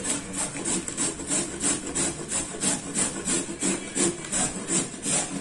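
A carrot being grated on the coarse side of a stainless steel box grater, in even back-and-forth strokes about three a second.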